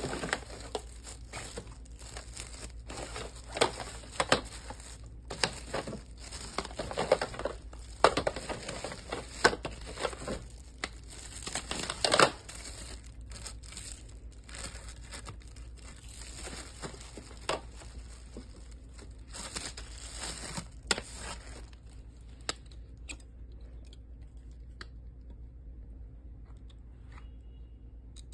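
Clear plastic wrapping on plastic agility poles crinkling and rustling as the poles are handled, in irregular crackles with sharper clacks now and then. The handling dies down a little past twenty seconds in, leaving a few faint clicks near the end.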